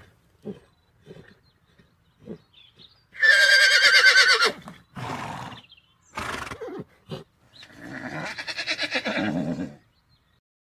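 Horse neighing: a loud, quavering whinny about three seconds in, two short breathy noises, then a second, longer whinny near the end.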